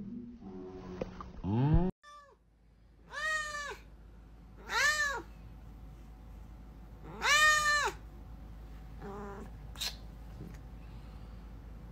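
A domestic cat meowing three times, each call rising then falling in pitch, the third the longest, followed by a softer call about nine seconds in.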